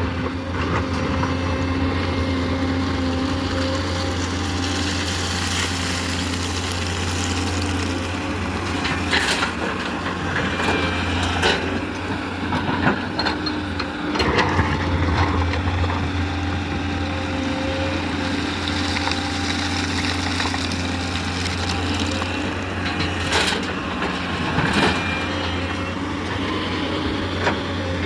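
Tata Hitachi 210 excavator's diesel engine running steadily under work, with scattered knocks and clanks through it.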